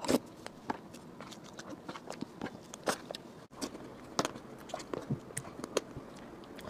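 Close-miked eating of soft cream cake from a spoon: wet mouth smacks, sticky lip and tongue clicks and soft chewing in irregular short strokes. The sound breaks off for a split second about halfway through.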